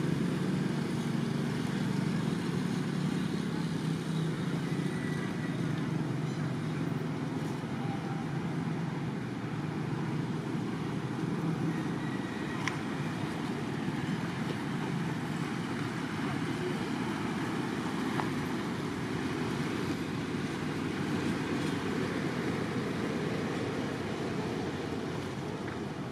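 Steady, even background rumble with no distinct events.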